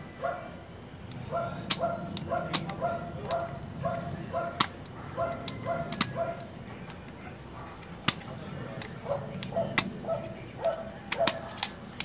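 A dog barking in quick runs of short, high yaps, several runs in a row. Over it come sharp metallic clicks, about a dozen, from pliers working the pin lock on a cable-actuated disc brake caliper.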